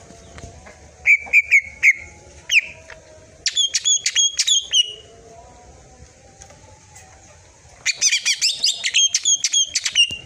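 Greater green leafbird (cucak ijo) singing in loud bursts of sharp, rapid whistled notes. A quick run of notes comes about a second in, then a falling note, then a fast phrase; near the end comes a dense flurry of notes.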